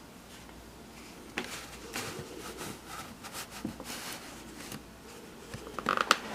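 Light handling noise: scattered small clicks and taps, with a louder quick cluster of clicks near the end.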